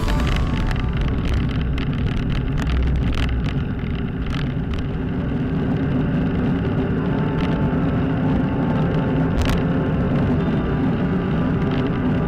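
Wind and road rumble on a bicycle-mounted camera during a ride, with many short rattles and knocks from the bike over the brick paving in the first few seconds and only a few once on the smooth path.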